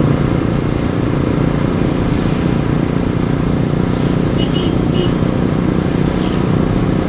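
Steady engine and tyre noise inside a car's cabin while it drives along at highway speed.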